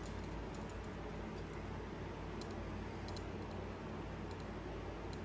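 Faint, scattered light clicks and ticks from handling a potted orchid and its packaging, over a steady low room hum.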